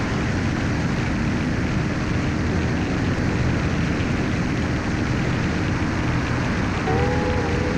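Steady drone of a light aircraft's engine with rushing wind noise, heard from the camera aircraft in formation flight.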